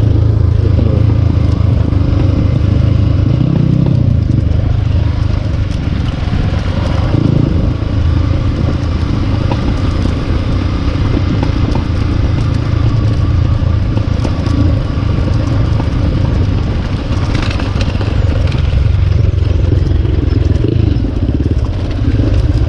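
Dirt-bike engine running steadily, its pitch rising and falling only slightly.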